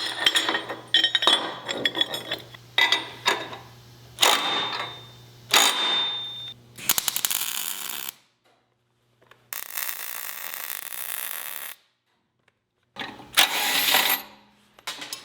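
Steel parts knocking and clanking as they are handled and fitted, some strikes ringing briefly. These give way to separate stretches of steady tool noise that start and stop abruptly.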